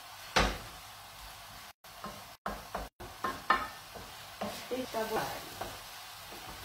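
Spaghetti all'assassina sizzling as they fry in an aluminium pan, stirred with a utensil that scrapes and knocks irregularly against the pan. The sound cuts out briefly three times around the middle.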